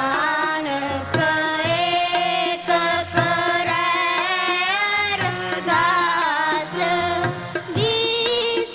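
Sikh kirtan: a child sings a devotional hymn in long, bending held notes, accompanied by harmonium and a steady tabla rhythm.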